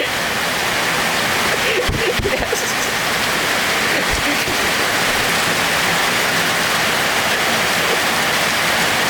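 Heavy rain falling steadily in a dense, even hiss, with a few dull low thumps about two seconds in and again near four seconds.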